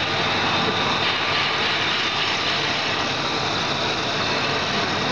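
Floating fish-feed extruder line running: a loud, steady machine noise from the motors, mixer and extruder, unchanging throughout.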